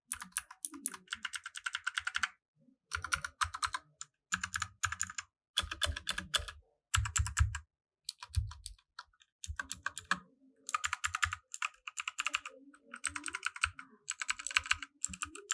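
Typing on a Ziyoulang K84 compact mechanical keyboard with blue (clicky) switches: fast runs of key clicks broken by short pauses.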